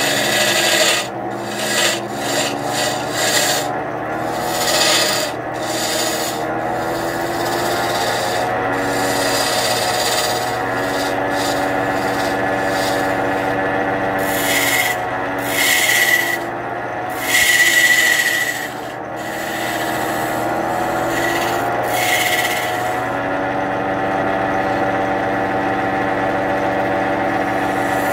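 Wood lathe running with a steady hum while a turning chisel cuts a large wooden mortar blank, giving repeated bursts of scraping as the tool bites the spinning wood. The cutting eases off near the end, leaving mostly the lathe's hum.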